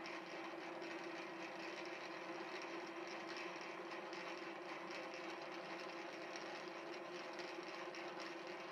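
Milling machine slotting head running, its hand-ground tool bit reciprocating to cut a 1 mm slot into the end of a steel bar. The machine gives a steady hum with a constant low tone.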